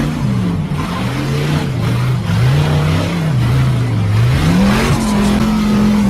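Off-road Jeep's engine revving up and down several times, its pitch rising and falling every second or so, then held high near the end.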